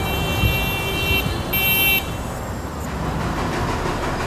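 Road traffic running steadily, with a vehicle horn honking twice: a longer honk at the start and a short one about a second and a half in.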